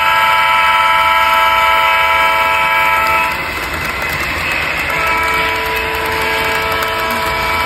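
Diesel locomotive horn from an HO scale model train, a chord of several notes, sounding in two long blasts: the first stops about three seconds in, the second starts about five seconds in. A low steady rumble runs underneath.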